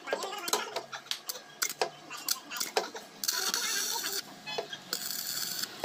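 Arc (stick) welding on an e-rickshaw's steel chassis and body. A run of sharp metallic taps comes first. About three seconds in the arc catches and crackles and hisses steadily, stops for under a second, then crackles again.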